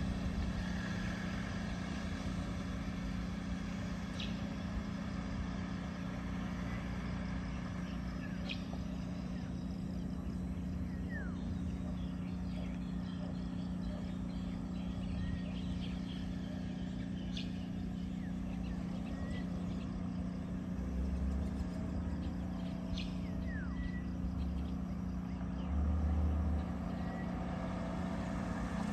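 Outdoor ambience: a steady low hum with scattered short bird chirps and calls. A vehicle approaching on the road adds a low rumble near the end.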